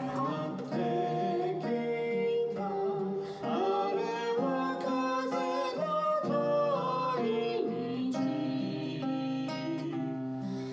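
A song sung to acoustic guitar accompaniment, a sung melody over plucked and strummed strings.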